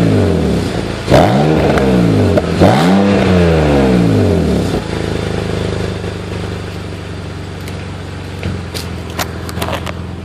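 BMW 330Ci's M54B30 inline-six, just cold-started, revved in two throttle blips that rise and fall, then settling to a steady idle about five seconds in; a few sharp clicks near the end. The owner says the engine misfires on a cold start.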